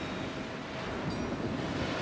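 North Sea surf: a small wave breaking and its foam washing up the sand, swelling louder through the second half, with some wind on the microphone.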